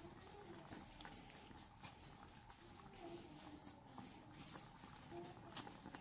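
Faint, irregular wet squishing and soft clicks from a bare hand mixing shelled mussels in a spiced marinade in a clay tagine.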